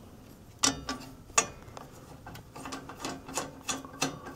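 Handling noise on the metal cabinet of an unpowered vintage oscilloscope: two sharp knocks, then a run of lighter knocks and rubbing, several with a short low ring.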